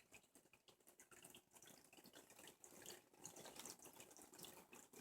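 Faint, irregular trickling and dripping of water from a small man-made waterfall in a reptile tank.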